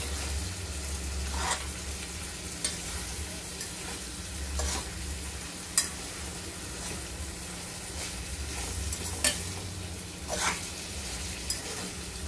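Ackee and red herring sizzling in a metal pot on the stove while being slowly stirred, with a few sharp clinks of the stirring utensil against the pot.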